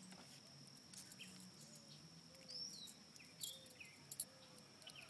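Near silence: a steady high-pitched insect drone, with a few short falling bird chirps and a couple of sharp clicks about three and four seconds in.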